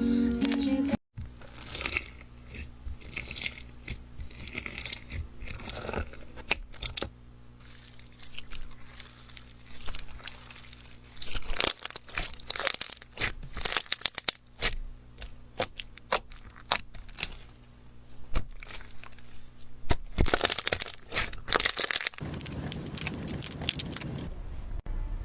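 Slime being squeezed and poked by hand, crackling and popping in irregular clusters of sharp clicks with short lulls between.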